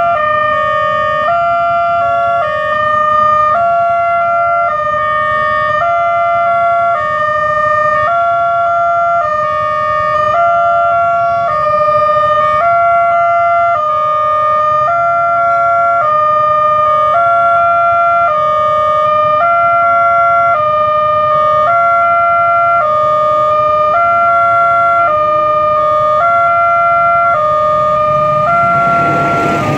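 Railway level-crossing warning alarm: an electronic two-tone signal alternating steadily between a lower and a higher pitch, each held under a second, sounding that a train is coming. About a second before the end, the rumble of the approaching train rises under it.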